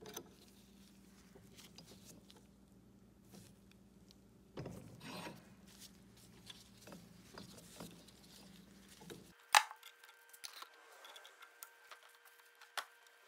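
Quiet workshop handling as a threaded rod is unscrewed from an air cylinder head held in a bench vise: light rubbing and scraping of an adjustable wrench and metal parts, with paper towel rustling. A sharp click about nine and a half seconds in is the loudest sound, followed by a few small clicks.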